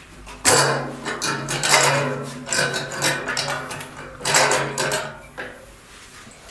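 Petrol poured from a metal jerrycan through a funnel into a motorcycle fuel tank, coming in uneven spurts with a lull partway through.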